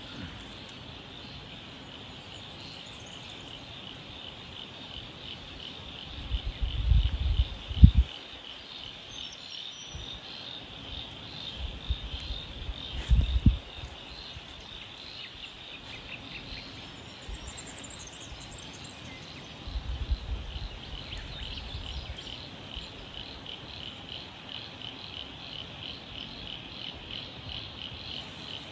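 A high, rapidly pulsing chorus of calling insects, steady throughout. Low rumbles break in several times, loudest at about 7 to 8 seconds and again at about 13 seconds, with a weaker one at about 20 seconds.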